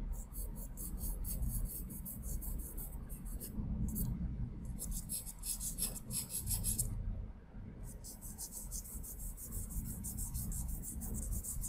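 Charcoal pencil shading on layout paper: runs of rapid, even, scratchy back-and-forth strokes, with short breaks and a pause of about a second past the middle.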